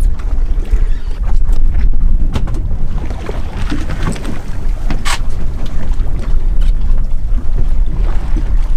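Wind buffeting the microphone aboard a fishing boat at sea, a loud steady low rumble, with scattered clicks and a sharp knock about five seconds in.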